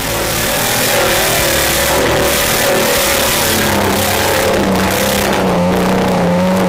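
Off-road vehicle's engine revving loudly, its pitch wavering up and down.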